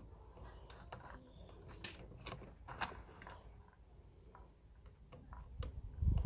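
Scattered light clicks and taps of small parts being handled and fitted together, more of them a couple of seconds in, with a low rumble starting near the end.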